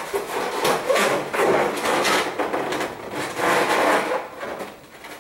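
Inflated latex balloons rubbing against one another as a balloon duplet is pushed and twisted into the gap between others in a balloon garland, in irregular swells about once a second that fade near the end.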